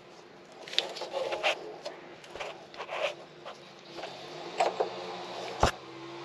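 Scraping, rubbing and irregular clicks of a gloved hand working metal subframe bushing collars into the rubber rear subframe bushings, with one sharp knock about five and a half seconds in.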